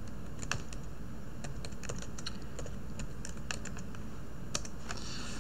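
Typing on a computer keyboard: a string of irregular key clicks, over a steady low hum.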